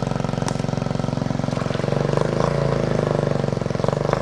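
Straight-piped 110cc Chinese quad engine running steadily while the quad wades half-submerged through a water hole, its air intake on a homemade snorkel. Water splashes around the machine.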